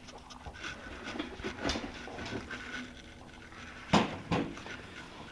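Aluminium beer cans being handled and set down, with rustling from the box packaging: a few light knocks and clicks, and a sharper knock about four seconds in.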